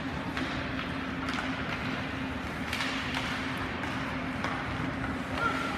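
Ice hockey rink ambience: a steady low hum under a wash of noise, with scattered faint clicks and taps from sticks, puck and skates on the ice.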